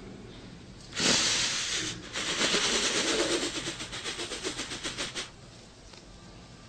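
A man weeping: a sudden breathy gasp about a second in, then a few seconds of shaky, rapidly pulsing sobbing breaths that stop abruptly about five seconds in.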